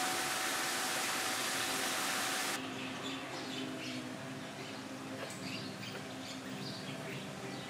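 A steady hiss with a faint hum cuts off abruptly about two and a half seconds in. Quieter outdoor ambience follows, with small birds chirping here and there.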